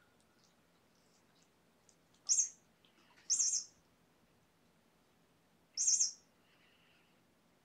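Kitten mewing: three loud, high-pitched mews, the second a little longer, with a pause of about two seconds before the third.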